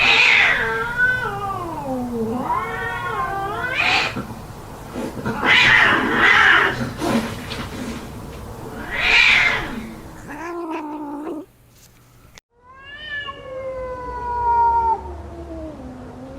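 Cats fighting: long wavering yowls and caterwauls broken by three loud, harsh hissing screeches. After a brief gap, one long yowl falls slowly in pitch near the end.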